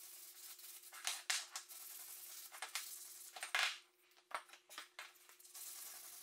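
Hand-sanding a small wooden piece with a sheet of sandpaper: a series of short, uneven scratchy strokes, the loudest about three and a half seconds in, over a faint steady hum.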